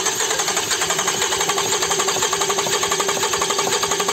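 Starter motor cranking a Toyota 2GR-FE 3.5-litre V6 with a compression gauge screwed into a spark-plug hole: a loud, fast, even churning. The cylinder comes up to about 14 kg/cm², the same reading as every other cylinder, which means the compression is even.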